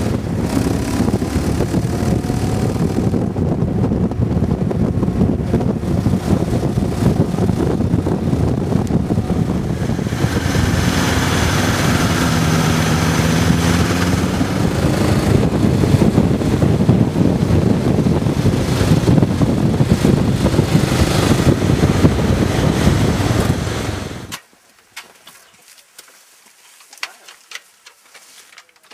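Motorcycle engine running at road speed under heavy wind rush on the microphone, its pitch rising and falling. The noise cuts off suddenly about 24 seconds in, leaving only faint ticks and knocks.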